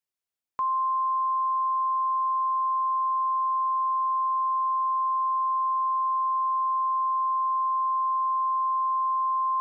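Emergency Alert System attention signal: a single steady, high-pitched pure tone that starts about half a second in and holds unbroken, announcing that an emergency message is about to be read.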